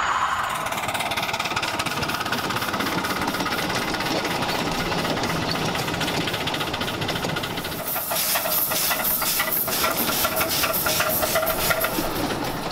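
Miniature steam locomotive working along the track. Its exhaust chuffs in a quick, even rhythm, with steam hissing from the cylinders, growing strong about two-thirds of the way in. Before that there is a steady running noise from the train on the rails.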